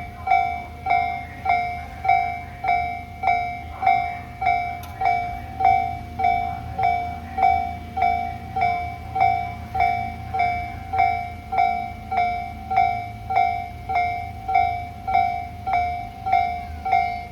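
Level-crossing warning bell ringing steadily, a struck tone repeating about one and a half to two times a second, over the low rumble of a train.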